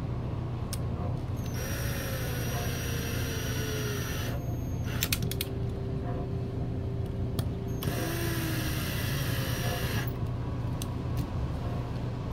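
Electric screwdriver with a hex bit running in two spells of about two and a half seconds each, driving small M3 button-head screws into a plastic skid plate, with a few clicks of handling in between.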